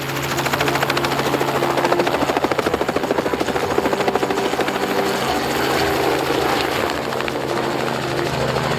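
Helicopter rotor blades chopping rapidly with a steady engine hum, growing louder over the first two seconds and then holding steady.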